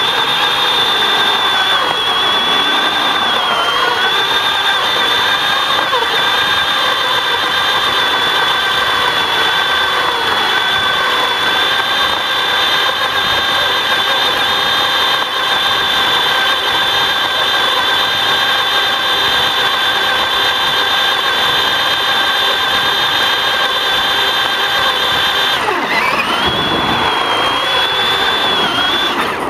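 Battery-powered RC car's electric motor and gears whining steadily at a high pitch, very close, heard from a camera taped to the car. About 26 seconds in, the whine drops sharply and climbs back up as the car slows and speeds up again.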